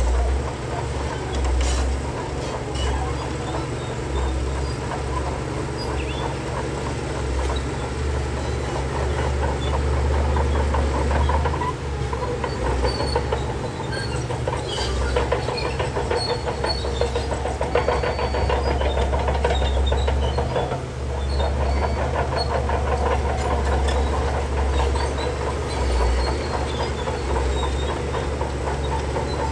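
Shantui DH17C3 crawler bulldozer working: its diesel engine runs under a steady low rumble while its steel tracks clatter quickly, rising and easing in level as it moves.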